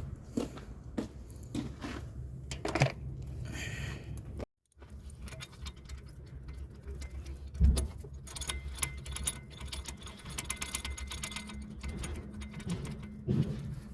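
Metal clunks and knocks of a replacement car starter motor being fitted, then, about eight seconds in, a few seconds of fast ratchet-wrench clicking as its bolts are run in.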